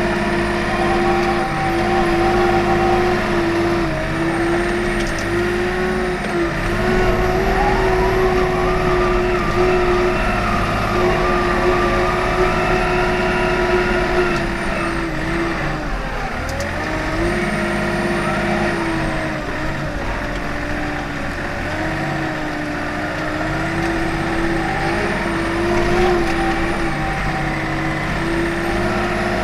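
Komatsu WA40 mini wheel loader's diesel engine running steadily under work while it pushes snow with its bucket. Its pitch wavers with the load, dips briefly about halfway through and comes back up.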